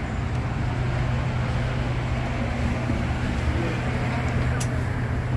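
Moving passenger railcar: a steady low rumble and hum of the wheels running on the track.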